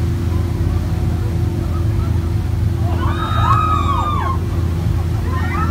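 Dolphins whistling: several overlapping rising-and-falling whistles about three seconds in and again near the end, over the boat engine's steady low hum.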